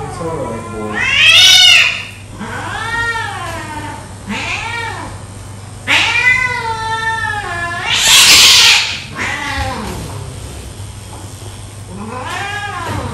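A restrained cat yowling in distress: a series of long, rising-and-falling wails, with a loud hiss about eight seconds in. A steady low hum runs underneath.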